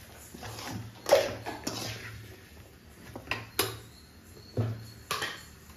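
Metal spoon scraping and knocking against an aluminium kadai while stirring frying brinjal pieces: a string of sharp clinks and scrapes, the loudest about a second in.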